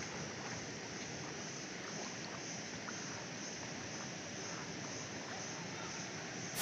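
Faint, steady outdoor wash of lake water and light wind, with no distinct splashes standing out.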